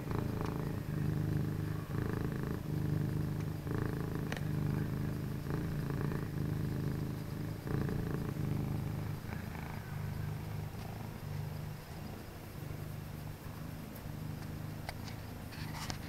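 Domestic cat purring close to the microphone while being stroked, the purr coming in steady pulses about a second long and growing a little fainter near the end.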